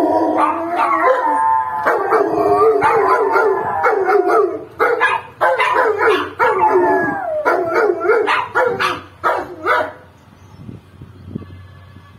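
A Rottweiler and a Pomeranian howling together in long, wavering, gliding howls that start abruptly, break into shorter howls in the second half and stop a couple of seconds before the end.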